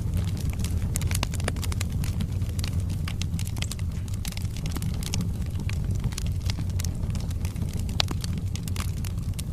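Wood fire burning in a fireplace: a steady low roar with frequent sharp crackles and pops from the burning logs, and one louder pop near the end.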